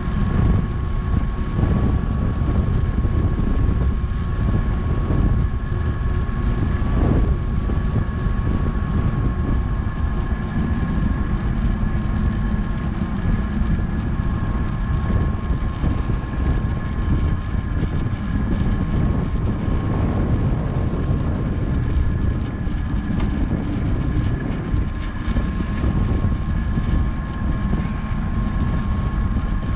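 Wind buffeting a GoPro's microphone during a fast downhill bicycle ride, a steady loud rumble with the bike's tyres rolling on the road. A faint steady high whine runs under it.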